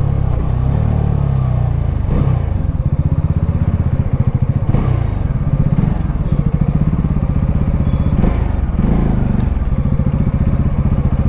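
Bajaj Dominar 400's single-cylinder engine running at low revs, its exhaust pulsing steadily, with the revs rising and falling briefly a few times.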